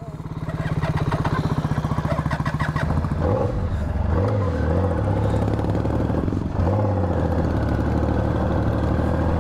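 Triumph Thunderbird motorcycle engine idling, then pulling away about three seconds in, running louder and higher as it rides off, with a brief dip about six and a half seconds in.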